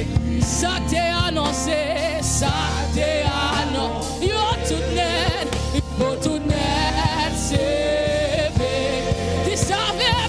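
Gospel worship singing: a woman leads into a microphone, with other singers joining, over an instrumental accompaniment. Her held notes waver with vibrato.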